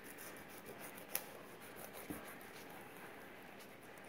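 Fillet knife cutting into a bluegill, faint quick scraping strokes of the blade through flesh and scales, with a sharp click about a second in.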